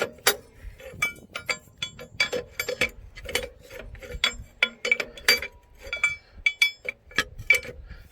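Ratchet wrench clicking in short irregular strokes, about three metallic clicks a second, as a bolt is turned to set the tension on an engine drive belt.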